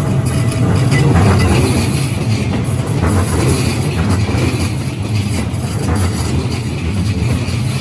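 Keikyu Line train passing over a level crossing: a loud, steady rumble of wheels on the rails.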